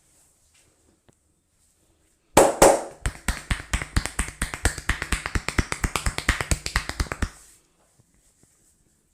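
Fast, rhythmic percussive taps of a barber's hands striking the head in a percussion head massage, about seven a second for some five seconds, opening with a couple of louder slaps.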